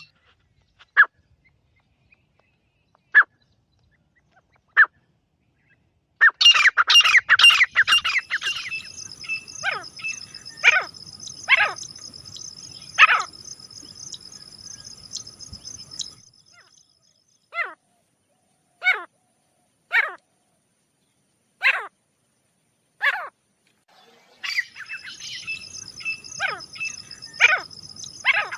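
Grey francolin calling: three single sharp calls, then a fast run of calls, then loud single falling calls spaced about a second and a half apart. A steady high ringing trill sits behind the calls for stretches of several seconds.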